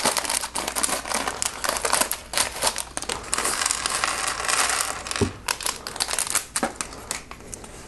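Plastic polybags of Lego pieces being handled and torn open, a continuous irregular crinkling with many small crackles and clicks.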